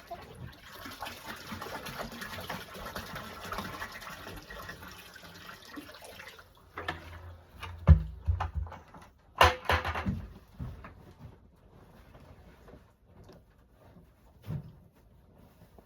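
Water running steadily for about six seconds, then stopping, followed by a few sharp thumps and knocks.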